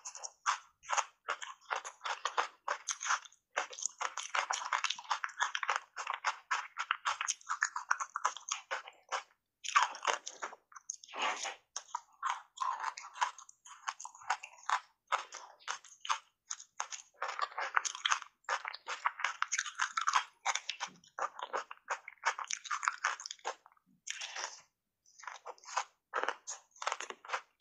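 Crunching and chewing of ice blocks coated in thick matcha powder: a rapid run of crackly crunches as the ice is bitten and broken between the teeth, with a couple of short pauses.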